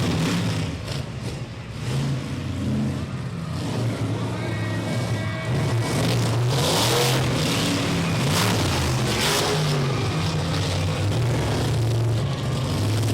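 Monster truck engine revving hard, its pitch rising and falling again and again, with louder bursts of noise about seven and nine seconds in.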